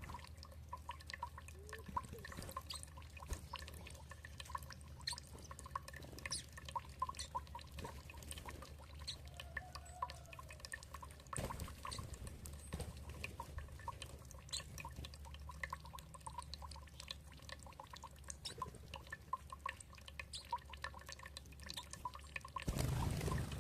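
Water dripping and trickling, many small irregular drips over a low steady background. A brief louder rush of noise comes near the end.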